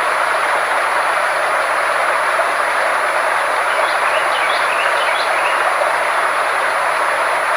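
Frequency-therapy sound track: a steady rushing noise bed with a constant high-pitched tone and a faint low hum under it, and a few faint short chirps about half-way through.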